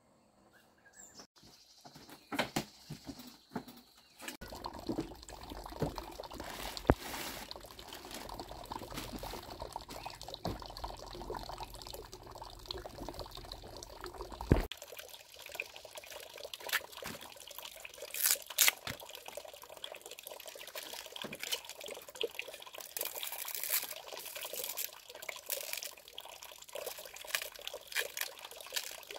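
Water splashing and trickling, with scattered knocks and clicks of handling. A deep rumble under it for the first half stops abruptly about halfway through, leaving lighter, hissier water sounds.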